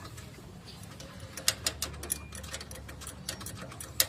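A series of sharp, irregular clicks or taps over a low steady hum, the loudest about a second and a half in and near the end.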